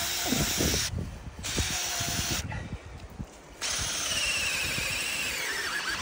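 Power drill boring into a tree trunk to tap it for sap, running in bursts and cutting out twice briefly.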